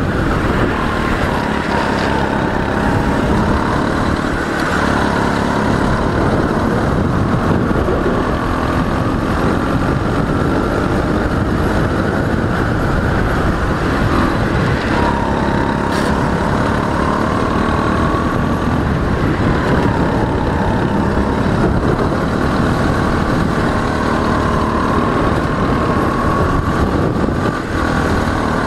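Racing kart engine heard from on board, running hard around the track: its pitch climbs gradually along each straight and drops as it slows for a corner, over and over.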